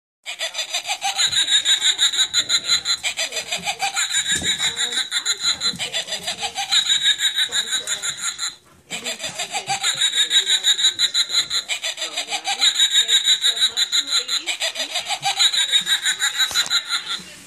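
Electronic cackling laughter, a witch's cackle played from a sound clip, running for about eight seconds, breaking off briefly, then playing again.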